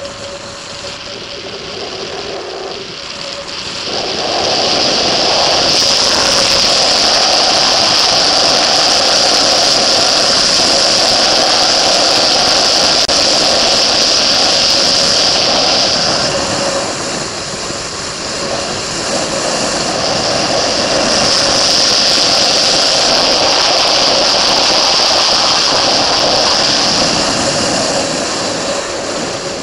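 Motorcycle engine running at speed on a race track, heard from an onboard camera along with heavy wind rush on the microphone. It grows much louder about four seconds in, eases off for a few seconds past the middle, builds again, and falls away near the end.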